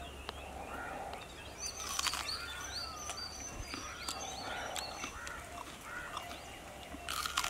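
Birds chirping and calling in short repeated phrases over a low steady hum, with two louder crunching bites, about two seconds in and near the end.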